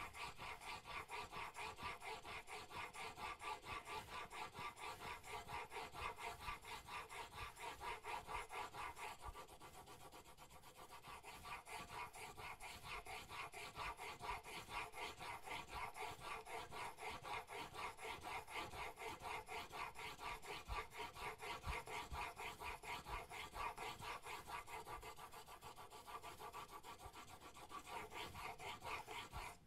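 Steel chisel bevel, held in a Sharp Skate 4 honing guide, being rubbed back and forth on a wet sharpening stone: a steady rhythmic grinding rasp of several strokes a second that eases briefly about ten seconds in. It is the slow last stage of squaring the edge, grinding metal away to carry the burr into the final corner.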